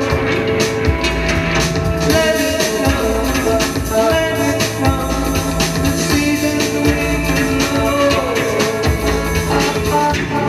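Live electronic chamber-pop music: sustained organ-like keyboard tones over a steady drum beat, with a woman singing into a microphone.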